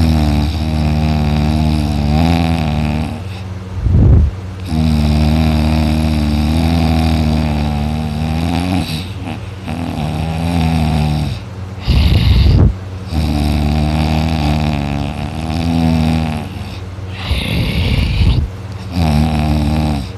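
A sleeping man snoring and moaning: long drawn-out pitched groans on the breath, several seconds each, broken every few seconds by short rough snoring breaths.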